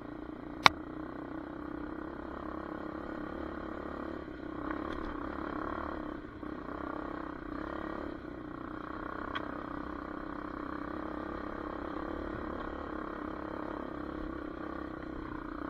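Hawk 250 DLX dirt bike's engine running steadily at cruising speed along a gravel trail. A single sharp crack about a second in, and a fainter click about nine seconds in.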